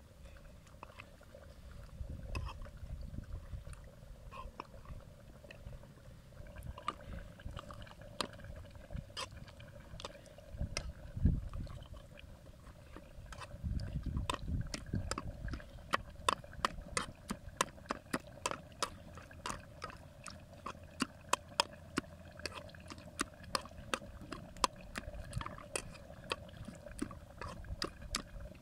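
A brass pestle (gusht-kub) mashing the cooked potatoes and meat of abgoosht on a paper plate. Each stroke gives a sharp click as it hits the plate, with soft squashing between. The strokes are sparse at first, then settle into a steady two to three a second.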